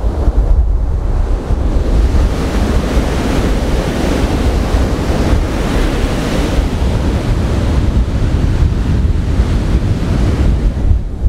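Heavy storm surf breaking and washing up the beach in a continuous hiss and rush, growing louder in the middle, with strong wind buffeting the microphone in a steady low rumble.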